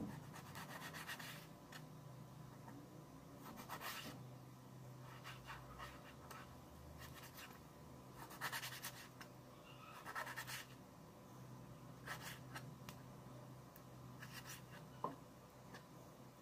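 Kitchen knife slicing raw tuna into cubes on a plastic cutting board: faint clusters of cutting and scraping strokes every couple of seconds, over a low steady hum.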